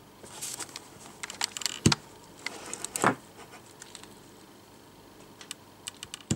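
Thin clear plastic bottle clicking, tapping and crinkling as a cat paws at it and presses its face against it. There are two louder knocks about two and three seconds in.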